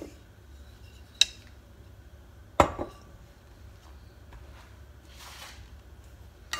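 Two sharp clinks about a second and a half apart, the second louder and ringing briefly, as a glass olive-oil bottle and kitchen utensils are set down beside the stove. A faint low hum runs underneath.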